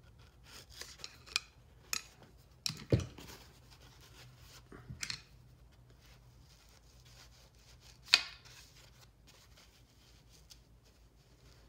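A screwdriver working a blue shop rag into the bore of a 1978 Yamaha XS1100 rear master cylinder to clean out rusty crud: scattered scrapes, rag rustles and small clicks. A sharper knock comes about three seconds in and the loudest scrape about eight seconds in.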